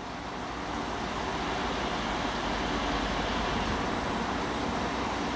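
Diesel train engine noise, a steady rumble that grows louder over the first few seconds and then holds.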